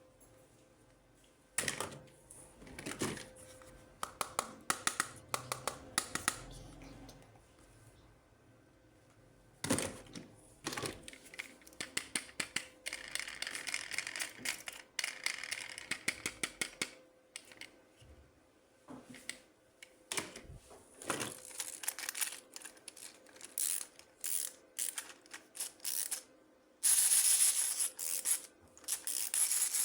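Plastic toys and their packaging being handled during an unboxing: irregular runs of sharp clicks and taps, with rustling or crinkling, loudest near the end.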